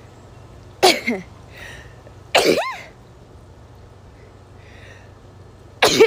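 A woman sneezing three times: about a second in, again at two and a half seconds, and near the end, with short breaths drawn in between. The sneezes come from the photic sneeze reflex, set off by looking into the sun.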